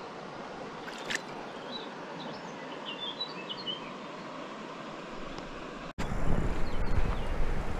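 Steady rush of a shallow river, with a small bird chirping a few short notes about two to three seconds in. About six seconds in, the sound cuts abruptly to a louder, lower rumbling noise.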